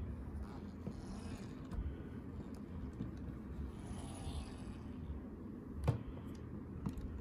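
Hands handling a plastic robot cat's body and limbs on a wooden tabletop: soft rubbing and scraping, a sharp plastic knock about six seconds in, and two lighter clicks near the end. The hand-moved joints give no motor or gear sound.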